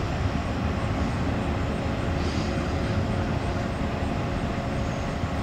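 Norfolk Southern double-stack intermodal freight train rolling past: a steady rumble of steel wheels on rail from the passing well cars.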